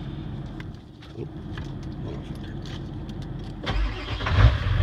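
Ford 7.3 Powerstroke turbodiesel V8 cold-starting: a few quiet seconds with light clicks, then near the end the engine cranks, fires and settles into a steady idle.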